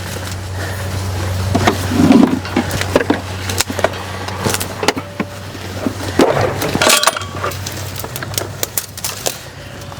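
Irregular clinks, knocks and rattles of small metal parts and hand tools being handled, loudest about two seconds in and again around seven seconds, over a steady low hum.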